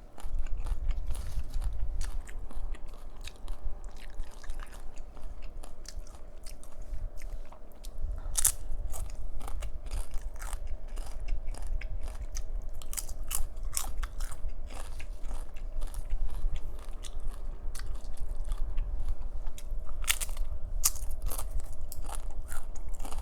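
Close-miked chewing and crunching of chips with salsa, with sharp, irregular crunches scattered throughout.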